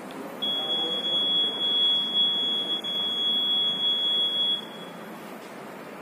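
Hamilton-C1 ventilator sounding its start-up tone as it is switched on: a single steady high-pitched beep held for about four seconds, then stopping.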